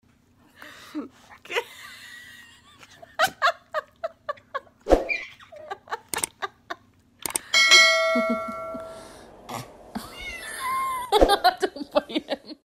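A house cat's meow-like cries mixed with a baby's squeals and laughter, with scattered sharp knocks. A bell-like chime rings out suddenly about seven seconds in and fades over about two seconds.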